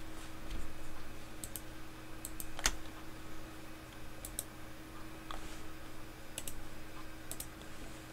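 Irregular clicks of a computer mouse and keyboard, a dozen or so scattered short clicks, the sharpest about two and a half seconds in, over a steady low hum.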